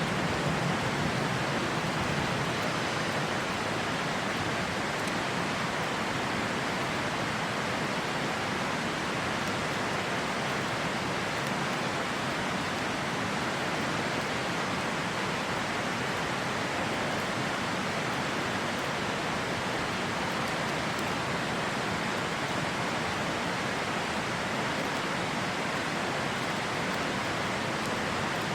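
River water rushing steadily, with a few faint crackles from a campfire.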